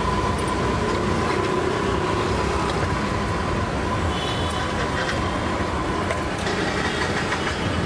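Steady street traffic noise. A thin, steady high tone holds through it and stops about six seconds in.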